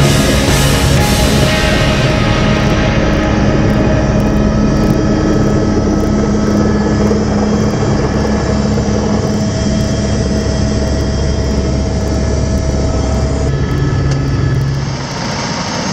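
Helicopter engine and rotor running steadily, heard from inside the cabin as it comes down to land on the helipad. Background music fades out in the first couple of seconds, and the cabin sound drops a little in level near the end.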